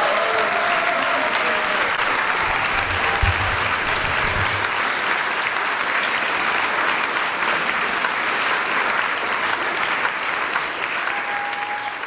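Concert audience applauding steadily at the end of a live performance.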